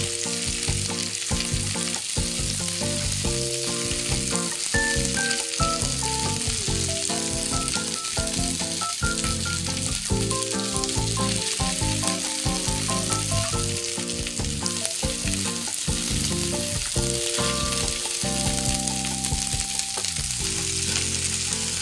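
Steamed yakisoba noodles sizzling in hot salad oil in a frying pan, with scraping and clicking as chopsticks loosen them. A soft melody plays underneath.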